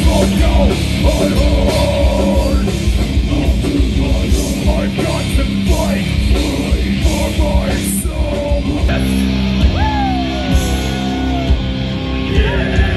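Loud heavy metal music, with distorted guitar, pounding drums and yelled vocals.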